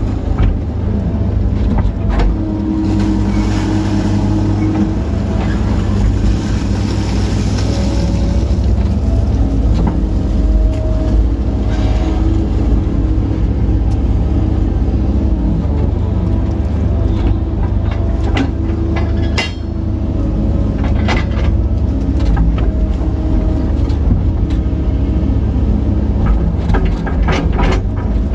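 Kobelco SK135SR excavator running steadily, heard from inside the cab as it digs and swings, with tones that step up and down in pitch. There are a few sharp knocks in the second half.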